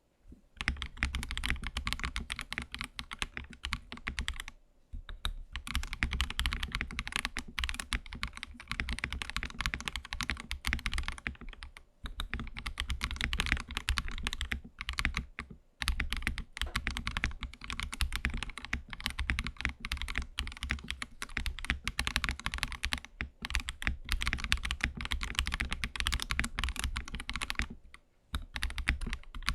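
Fast typing on an AKKO ACR Pro 75 gasket-mounted mechanical keyboard: dense, rapid keystrokes in long runs, broken by a few short pauses.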